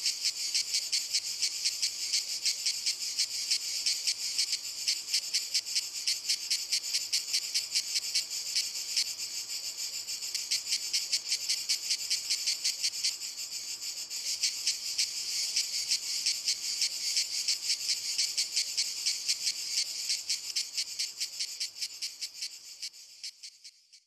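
Cicadas singing in a walnut tree, a loud, dense, high-pitched buzz pulsing rapidly, several pulses a second, fading out near the end.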